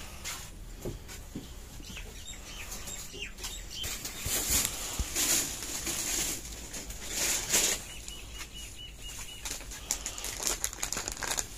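Clear plastic packaging rustling and crackling in irregular bursts as it is handled. A short run of about eight quick, high chirps comes a little after the middle.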